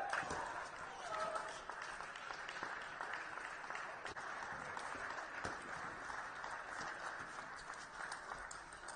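Spectators in a sports hall applauding steadily after a table tennis point, with a few faint ball bounces.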